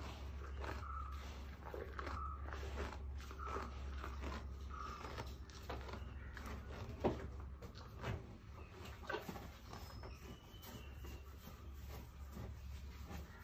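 Calf chewing and biting grass: a run of short, soft crunches, with a few sharper knocks about seven to nine seconds in, over a low steady hum.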